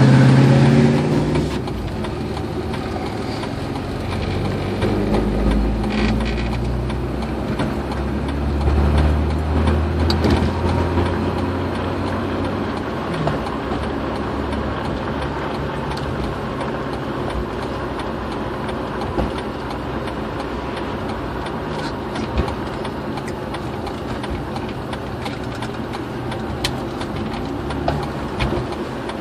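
Steady road and engine noise of a vehicle cruising at highway speed, heard from inside the cabin, with a few faint light clicks.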